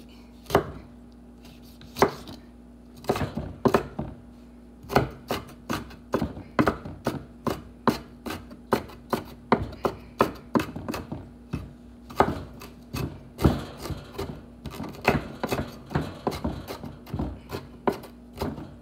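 Chef's knife chopping on a wooden cutting board: irregular sharp knocks on the board, a few at first, then about one to two a second.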